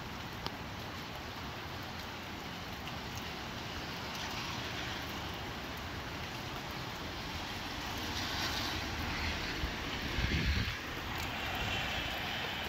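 Steady rain with gusty wind, swelling louder in the last few seconds, with a brief low rumble of a gust about ten seconds in.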